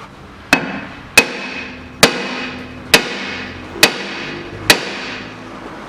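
Six hammer blows struck about once a second on the rusted rear wheel hub and brake drum of a Toyota Vitz, each a sharp metallic strike that rings on briefly. These are trial blows to free the seized hub, and it does not budge.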